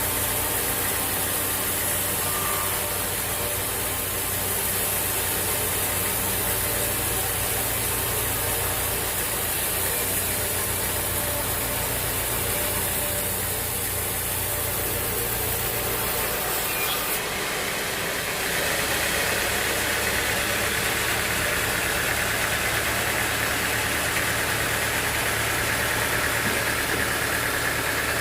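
Sawmill machinery running steadily with an engine-like hum. About 18 seconds in, the low hum drops away and a higher, rougher noise takes over and holds.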